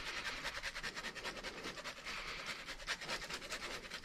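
Cheese being grated by hand: a quick, even run of rasping strokes across the grater.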